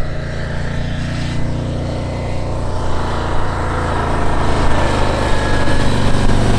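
Harley-Davidson Road King Special's V-twin engine running steadily, its sound slowly growing louder.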